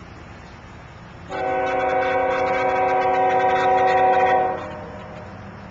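CSX locomotive's multi-note air horn sounding one long blast of about three seconds as a grade-crossing warning, starting about a second in and cutting off near the end.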